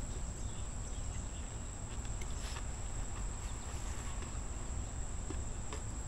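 Steady high-pitched insect trilling, unbroken throughout, over a low rumble and a few faint clicks.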